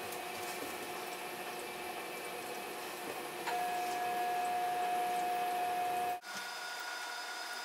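Steady hum and whir of running reef aquarium equipment, with a few faint whining tones over it. A louder single-pitch whine comes in about three and a half seconds in and stops suddenly after about six seconds, where the sound cuts out for a moment and the hum resumes with a different pitch.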